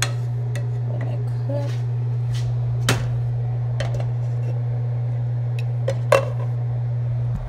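A wooden spatula knocks and scrapes in a frying pan of ground beef. About six seconds in, a glass pot lid clinks down onto the pan. A steady low hum runs underneath.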